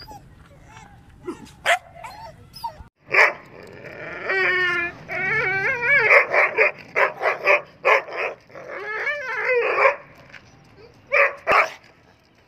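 Dog whining in a wavering high pitch, then giving a fast run of short, high yipping barks, several a second. Near the end it gives two sharp, loud barks.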